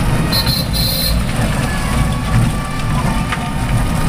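Ride noise of a three-wheeler rickshaw moving along a rough road: a steady low rumble with rattling. Two short high-pitched tones sound about half a second in.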